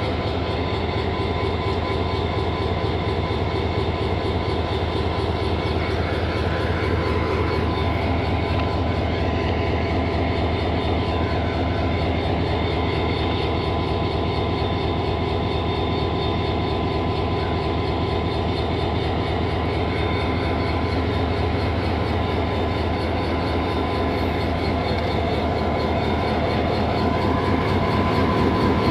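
3000-horsepower HGMU-30 diesel-electric locomotive standing and running its diesel engine: a steady, even engine hum with a held whine-like tone, getting a little louder near the end.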